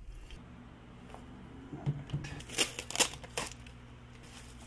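Handling noises: a few sharp clicks and short rustles, bunched from about two to three and a half seconds in, over a low steady hum.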